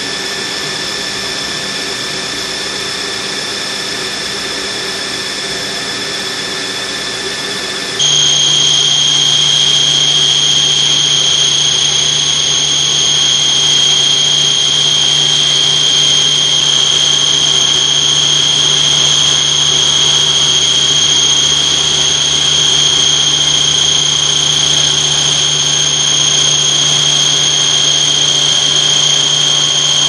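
Milling machine running with a steady high whine over noise, which changes suddenly about eight seconds in to a louder whine at a different pitch with a low hum under it.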